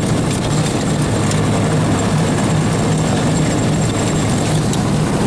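Engine of a small motorized snow vehicle running steadily under way, a constant low hum under a loud rushing noise.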